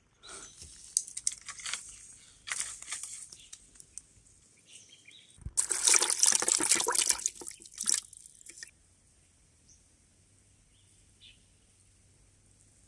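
Freshly caught fish thrashing in shallow water in a plastic bucket, splashing. There are scattered small splashes at first, then a loud bout of splashing for about two seconds in the middle, which stops suddenly.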